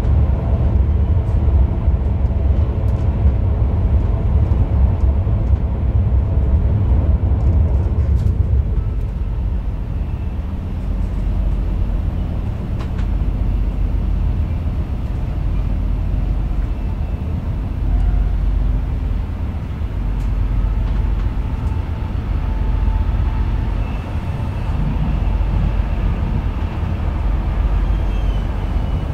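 Steady low rumble of a double-decker regional train coach running on the rails, heard from inside the carriage. It is louder for the first several seconds while the train crosses a steel truss bridge, then eases off a little.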